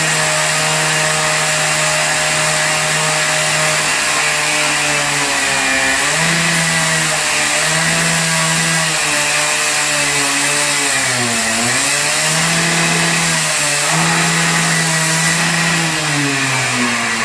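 Disc cutter running at high speed, its pitch dipping several times as the blade bites into the cut and dropping near the end.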